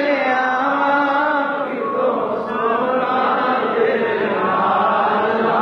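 Devotional naat chanting over a sound system: a male reciter's sung, held line, blending about two seconds in into many voices of the gathering chanting together.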